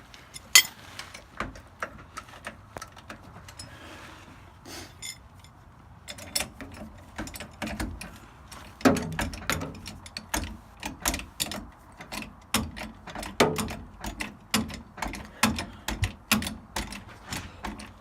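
Hand tools working on metal: irregular ratchet-like clicking and clanking, sparse at first and then steadier from about six seconds in, with two heavier knocks about nine and thirteen seconds in.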